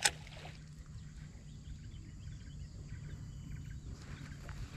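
Quiet outdoor ambience: a single sharp click at the start, then a low steady rumble with faint, short high chirps.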